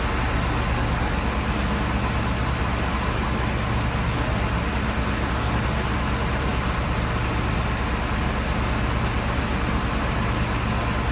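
Crane truck's engine running steadily, a constant low drone with no change in pace while the crane lifts the overturned car.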